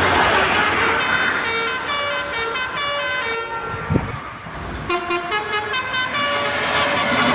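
Bus telolet horn, a multi-tone musical air horn, playing a quick tune of short stepping notes over a noisy background. The tune breaks off for about a second and a half around the middle, with a single thump, then starts again.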